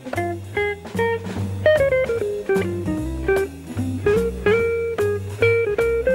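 Background music: a plucked guitar melody over a bass line, note after note without pause.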